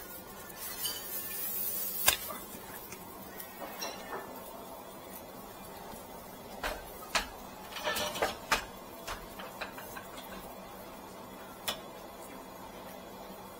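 Dry rice straw being handled for waraji-making: scattered rustles and crisp snaps, with a sharp snap about two seconds in and a run of them a little past the middle.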